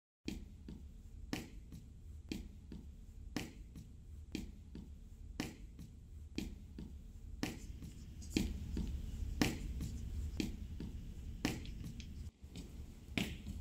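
A clock ticking steadily, a louder tick about once a second with a fainter one in between, over a low steady hum.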